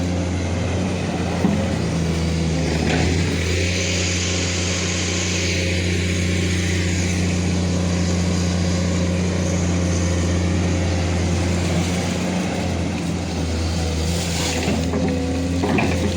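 Diesel engine of an earth-moving machine running steadily at working speed, a continuous low drone.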